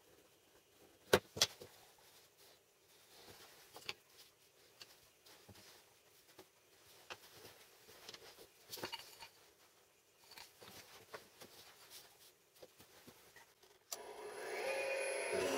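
Light handling of small plywood parts and a drawing compass on a wooden desk: two sharp knocks a little over a second in, then scattered soft taps and rubs. About a second before the end a drill press motor starts running steadily and much louder.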